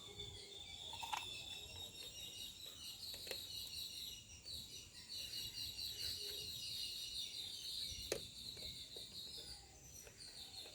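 Small birds chirping continuously in the background, a quick run of high, repeated chirps, with a few faint clicks about one, three and eight seconds in.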